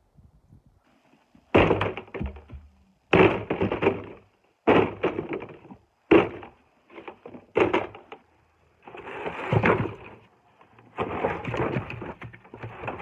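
Firewood logs tossed one at a time into a plastic wheelbarrow tub, each landing with a heavy wooden thud, five times about a second and a half apart; in the last few seconds, longer stretches of logs knocking and clattering together.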